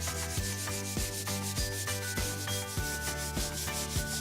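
Crayon rubbing across paper in quick back-and-forth scribbling strokes, over background music with a steady beat.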